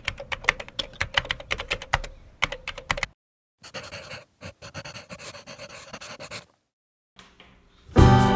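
Quick computer-keyboard typing clicks for about three seconds, then after a short gap about three seconds of scratchy rustling. Music starts just before the end.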